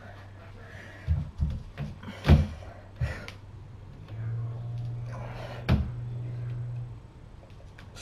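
Doorway pull-up bar knocking and thumping against the door frame as it is grabbed and hung from for pull-ups: a handful of sharp knocks, the loudest about two seconds in. A low steady hum runs for a few seconds midway.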